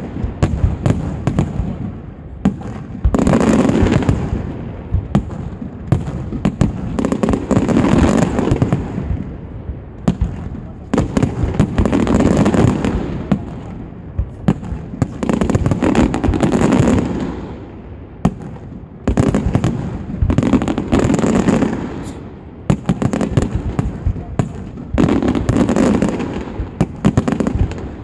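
Pirotecnia del Mediterráneo aerial firework shells bursting in a continuous barrage of dense, rapid bangs and crackles, swelling into loud waves about every four seconds.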